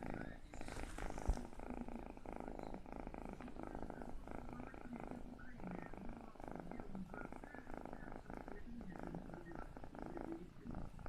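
Domestic cat purring steadily, the fast rumbling pulses of the purr running on without a break.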